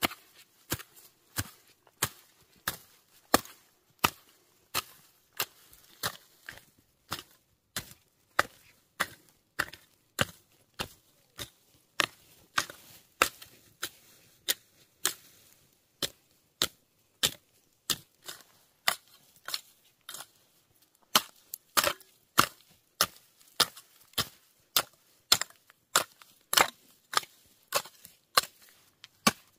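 A three-tined hand hoe chopping into dry, grassy soil as the ground is tilled: sharp strikes in an even rhythm, about three every two seconds.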